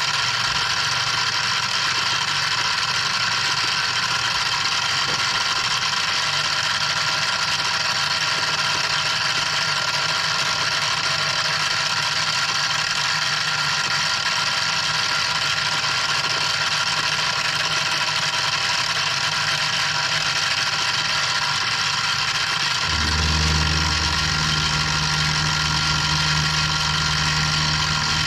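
Benchtop milling machine running steadily, its end mill cutting a slot in a wooden knife-handle block clamped in the vise. About 23 seconds in, a lower hum comes up and the sound gets slightly louder.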